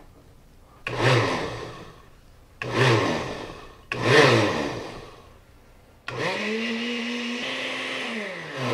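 Countertop blender puréeing cooked asparagus soup. It is pulsed three times, each a short whir that spins up and coasts down, then switched on about six seconds in and runs steadily until it winds down near the end.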